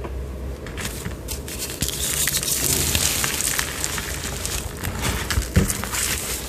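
A broken slab of gym chalk being crushed and crumbled into powder by hand, crackling and crunching densely, starting about a second in.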